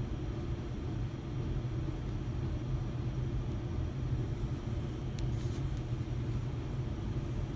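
Steady low rumble of background machinery or ventilation running, with a faint click about five seconds in.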